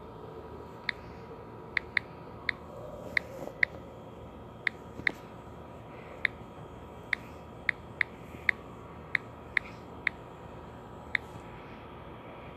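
Clicking at a computer while animating: sharp single clicks at an uneven pace, roughly one or two a second, over a faint steady hiss.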